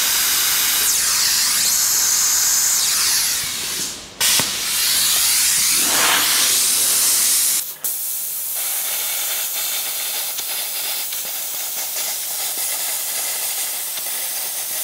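Hypertherm Powermax85 plasma cutter cutting 10 mm steel plate: a loud, steady hiss of the arc and air. It breaks off briefly about four seconds in, then stops about halfway through, leaving a quieter, steady hiss of air.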